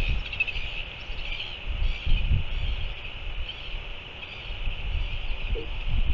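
Wind buffeting an outdoor microphone with an uneven low rumble, while small birds chirp in the background.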